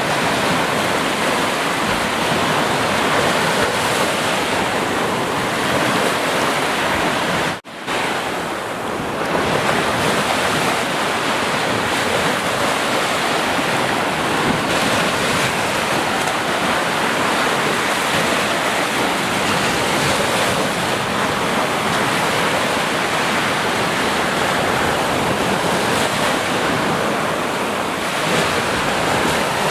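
Ocean surf: a steady wash of breaking waves, with a sudden momentary drop-out about a third of the way through.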